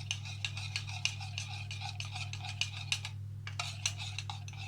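A spoon stirring a thick paste of melted butter, olive oil and carob molasses in a pot: quick repeated clicks and scrapes against the pot, with a short pause about three seconds in.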